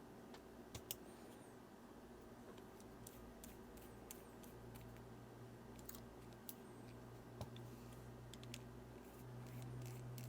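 Faint, sparse clicks of small metal parts: a precision screwdriver turning tiny screws into a watch case. A low, steady hum sits underneath and grows a little louder near the end.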